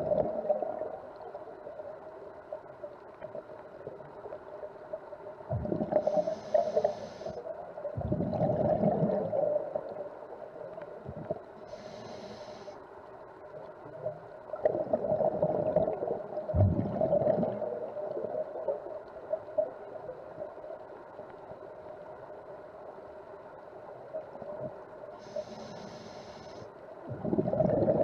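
Whale calls heard underwater: a steady mid-pitched drone with repeated louder moans, several of them sweeping down low. Three short bursts of hiss break in along the way.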